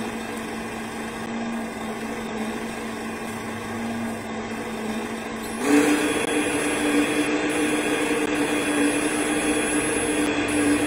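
Small electric motor of a 1/14-scale RC tow truck whining steadily. About six seconds in the whine steps up in pitch and grows louder as the crane boom and fork underlift start lowering.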